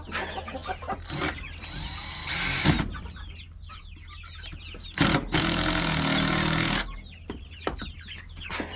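Cordless drill running in two short bursts, driving screws through metal strapping into wood: a brief whine about two seconds in, then a steady run of about a second and a half from about five seconds in. Hens cluck throughout.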